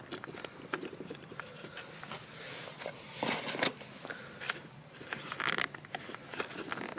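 Small plastic clicks, taps and rustling from car stereo wiring, connectors and antenna leads being handled, with a couple of longer scraping rustles near the middle.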